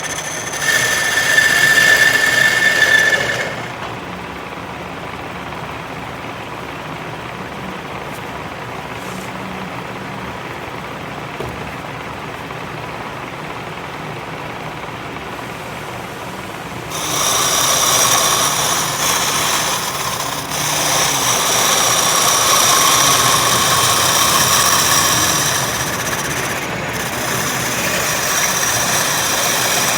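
Power machinery running with a steady high whine over a mechanical grinding noise. It is loud for the first few seconds, drops to a lower steady run, and grows loud again with the whine about seventeen seconds in.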